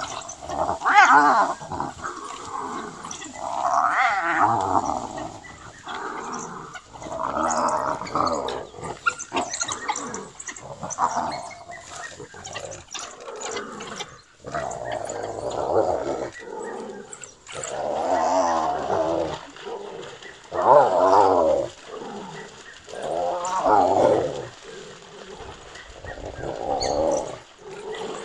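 Spotted hyena calling out under attack by African wild dogs: a series of loud, drawn-out, wavering groans and squeals, about one every three seconds.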